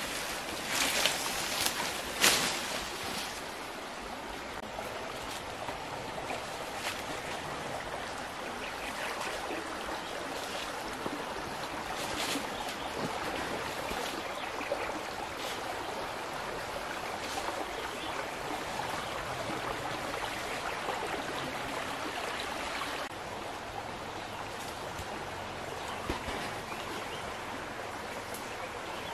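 Steady rushing noise like running water, with a few sharp cracks in the first two or three seconds; it turns a little quieter about 23 seconds in.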